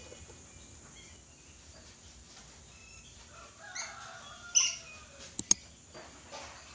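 Red lory giving a few short calls a little past halfway, over a low background, followed by two sharp clicks.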